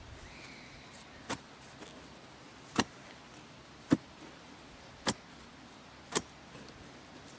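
A steel Strainrite fencing spade chopping down into firm soil five times, about once a second, each stroke a short sharp strike. The first is fainter than the four after it. The spade is digging out the hole for the breastplate beside a strainer post.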